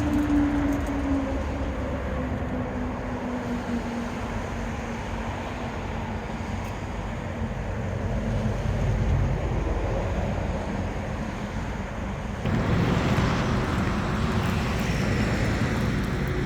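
Steady outdoor rumble and hiss, with a passing vehicle's engine tone sliding slowly down in pitch over the first several seconds. About twelve seconds in, the noise suddenly turns louder and brighter.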